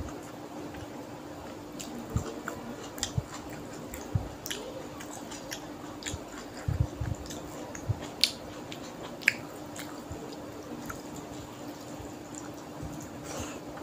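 Close-miked eating sounds: wet chewing and lip smacks on mouthfuls of rice and fish curry, with squelching as bare fingers mix the rice and curry on a plate. The sound comes as scattered short smacks and clicks over a faint steady hum.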